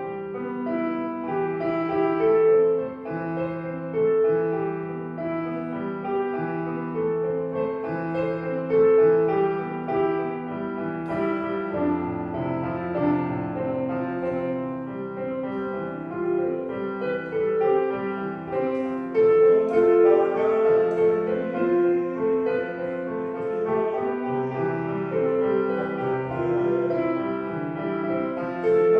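Street piano played solo: a melody over held bass notes, with no other sound.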